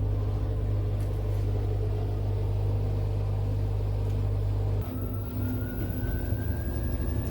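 Machine running with a steady low hum. It changes abruptly near the end into a motor with a thin whine that rises slowly in pitch.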